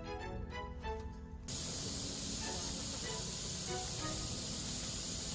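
Background music for about the first second and a half, then an abrupt cut to a steady, even hiss with faint voices far under it.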